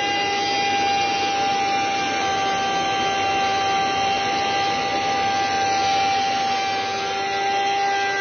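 Bosch plunge router spinning in a router table together with a connected industrial vacuum cleaner extracting the dust: a steady, high motor whine with several held tones.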